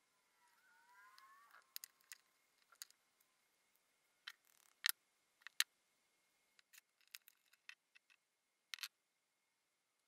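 Small, sharp metal clicks and ticks as a pocket knife's parts are fitted together and its replacement blade is worked in the frame, scattered singly and in quick little runs. A brief rising squeak comes about a second in.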